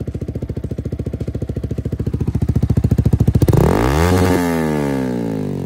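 Yamaha R15 v3's single-cylinder engine breathing through an Akrapovic aftermarket exhaust with its dB killer fitted. It idles with an even, fast putter that slowly quickens, then is revved about three and a half seconds in, the pitch climbing and falling back, and revved again near the end.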